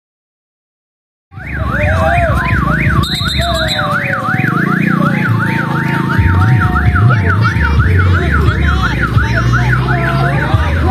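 Electronic siren sounding a fast up-and-down yelp, about three sweeps a second, starting after about a second of silence, over a loud low rumble.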